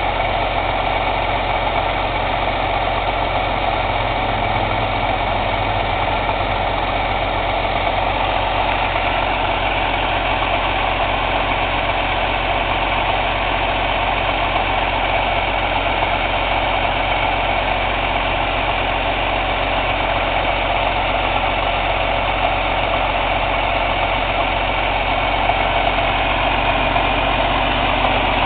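Cummins ISX CM2250 diesel engine running steadily at idle during a regeneration, with no separate chuffing bursts standing out.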